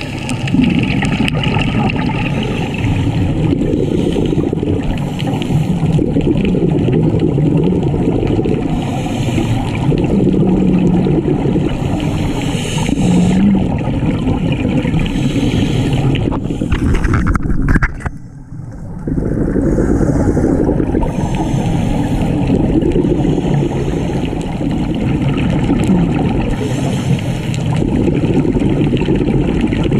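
Muffled underwater sound heard through a dive camera: a steady low rumble with bursts of scuba exhaust bubbles every few seconds. It drops out briefly about two-thirds of the way through.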